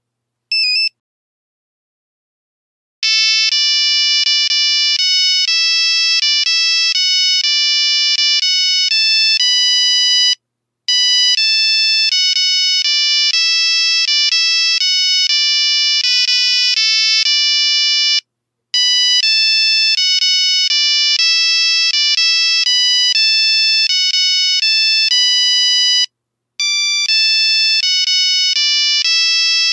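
Nokia 3310 ringtone: a fast melody of short, buzzy one-note-at-a-time beeps that plays for about seven seconds, pauses briefly and starts over, looping three times. A single short beep sounds just before it begins.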